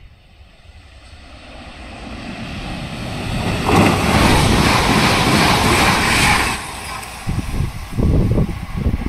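Alstom ETR 425 'Jazz' electric multiple unit running through the station at speed. The rushing of wheels on rail and air builds for about three seconds and is loudest for about three seconds as the train passes close, then drops off suddenly. Irregular low buffeting of wind on the microphone follows in its wake.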